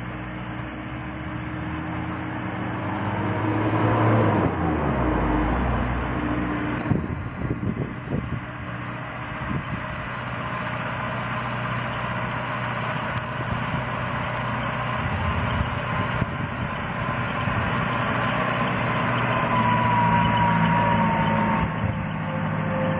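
An engine running steadily at a low, even pitch, with a thin whining tone near the end.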